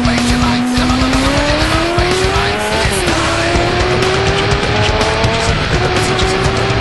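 Kawasaki ZX-6R inline-four engine accelerating hard, its pitch climbing steadily and dropping back at two upshifts, about three and five and a half seconds in. Music plays underneath.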